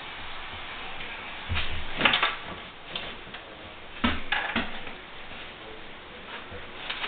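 A dog rummaging with its nose in a pull-out kitchen trash bin: two bursts of rustling and knocking, about a second and a half in and again about four seconds in, with a few lighter clicks in between.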